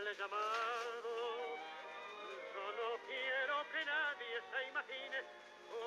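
Music with a man singing with a wide vibrato. The sound is thin and tinny, with almost no bass or top end.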